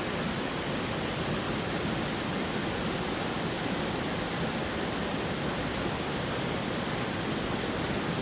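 Waterfall, a steady rush of falling water with no breaks or changes.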